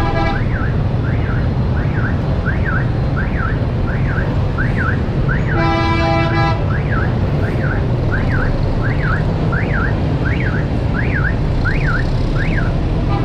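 Street traffic rumbling under an electronic alarm that chirps over and over in quick rising-and-falling sweeps, about three every two seconds. A horn toots briefly at the start and sounds for about a second near the middle.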